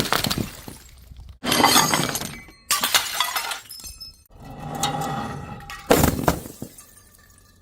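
Glass bottles smashing one after another, several separate hits, each a sharp crash followed by shards clinking and tinkling as they scatter and settle.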